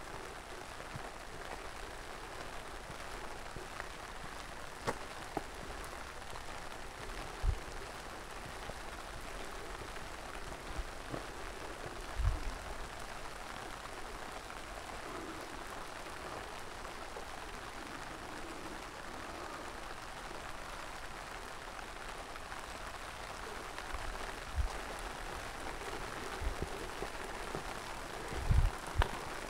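Steady rain falling, an even patter, with a few dull low thumps and light clicks now and then.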